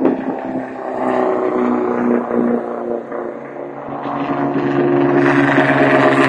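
Race car engine running at speed, its note shifting in pitch and growing louder as a racing sedan comes past near the end.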